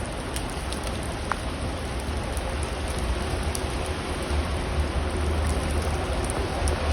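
Steady rushing hiss of flowing river water, with a low, uneven rumble of wind on the microphone.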